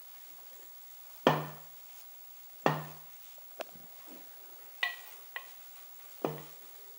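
Stainless steel turbo downpipe knocking against a concrete floor as it is turned while heat wrap is wound onto it: five sharp metallic knocks, each ringing briefly.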